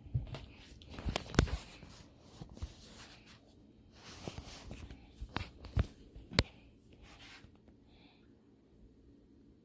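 Handling noises: a few sharp clicks and knocks with some rustling, in two clusters, about a second in and again from about four to six and a half seconds in, then quiet room tone.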